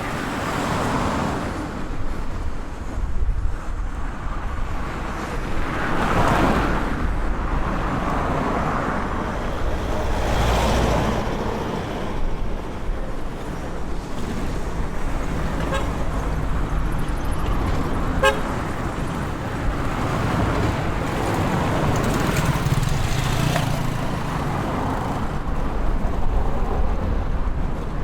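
Street traffic ambience: a steady rumble of cars and other vehicles, with several passing louder and fading again, and a car horn tooting.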